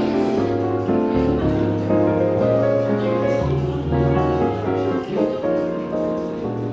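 Background piano jazz with a walking bass line.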